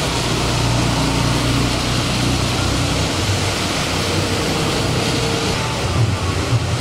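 Heavy rain pouring steadily onto a wet street, with a car driving past through it in the first few seconds; a couple of brief low bumps near the end.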